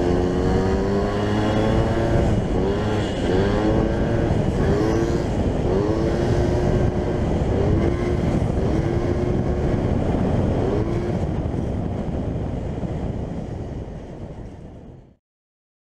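Moped engine running under way, its note rising and falling again and again as the throttle is worked, over rushing wind noise; it fades out near the end.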